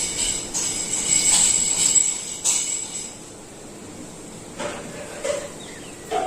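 Metallic jingling in several quick shakes during the first three seconds, then a few fainter short sounds.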